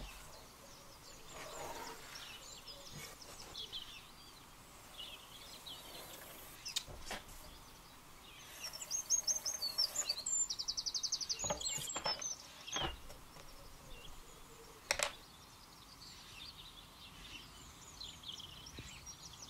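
Birds singing faintly, with a louder trilled song of quick repeated high notes about nine to twelve seconds in. A few light knocks on the wooden bench.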